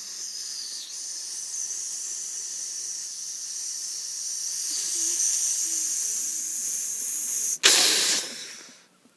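A long hiss in the manner of a Minecraft creeper's fuse, slowly getting louder over about seven and a half seconds: the creeper is about to explode. It cuts off for an instant, and then a loud explosion bursts out and dies away within about a second.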